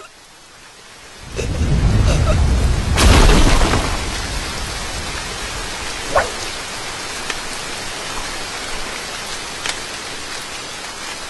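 Heavy rain falling steadily. About a second in, a rumble of thunder swells, peaks with a crack around three seconds, and fades back into the downpour.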